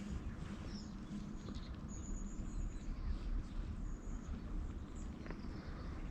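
High, thin bird chirps about once a second, one held a little longer near the middle, over a constant low rumble.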